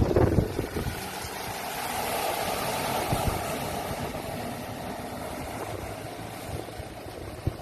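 A motor vehicle passing, its steady engine and road noise swelling for a couple of seconds and then slowly fading, with wind buffeting the microphone in the first half-second.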